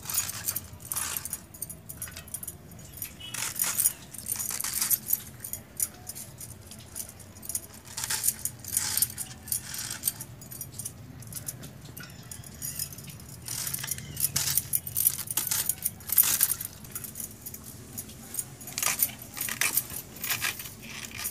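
A whole cabbage being shredded with a large knife against a wooden board: repeated crisp slicing strokes in irregular clusters.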